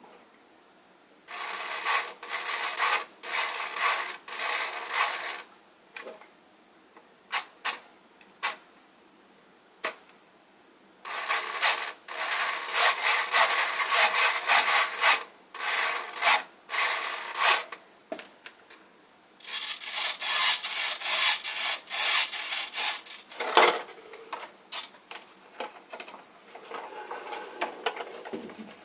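Small 9 g hobby servos whirring and buzzing in short, stop-start bursts as the transmitter sticks swing the foam model's control surfaces back and forth.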